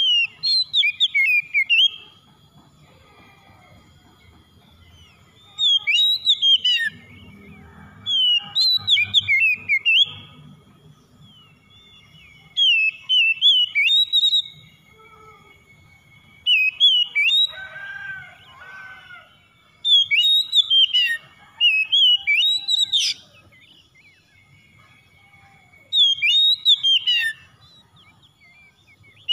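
Oriental magpie-robin (kacer) singing: loud, whistled phrases of one to two seconds, about eight of them, with pauses of a few seconds between.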